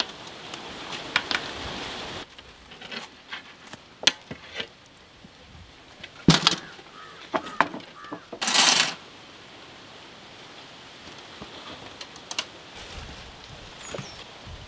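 Metal skewers and raw food handled on a steel platter: scattered clicks and knocks, with one short scraping noise just past halfway.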